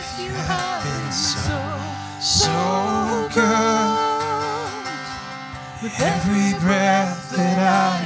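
Worship band playing a slow song: sung vocals over strummed acoustic guitar and electric guitar.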